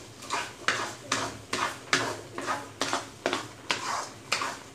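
A spoon stirring thick semolina halwa in a kadai, scraping the pan in short, regular strokes about twice a second. The halwa has cooked down to the stage where it comes away from the kadai and the ghee starts to separate.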